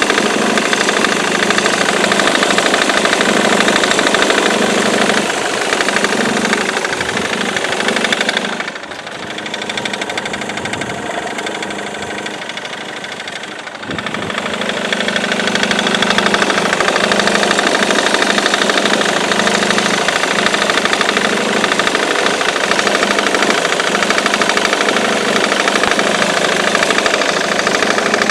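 Ford Mondeo Mk3's 2.0 TDCi four-cylinder diesel engine running with a fast, even knocking clatter. This is the strange noise that persists even with a new crankshaft pulley, belt tensioner and accessory belt fitted. The sound drops in level for several seconds about a third of the way through, then comes back.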